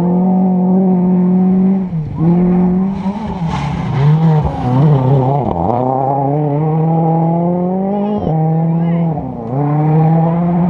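Rally car engines at high revs on a gravel stage, the note held steady and then dipping and changing pitch several times as the driver lifts and shifts gear through the corner. One car slides past about halfway through.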